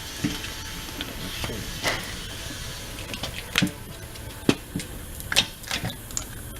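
Irregular sharp clicks and knocks of hands and tools working a run-flat insert into a truck tire, coming thicker and louder from about three seconds in, over a low steady shop hum.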